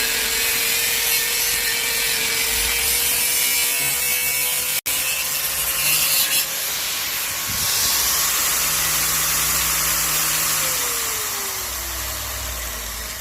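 Angle grinder running and cutting: a steady motor whine under a gritty, hissing grind, broken by a brief gap about five seconds in. Near the end the whine falls steadily in pitch as the disc spins down.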